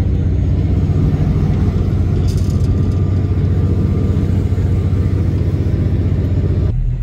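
Tour boat's engine running steadily with a deep drone as the boat turns back across the river. Near the end the sound changes abruptly to a thinner, lower drone.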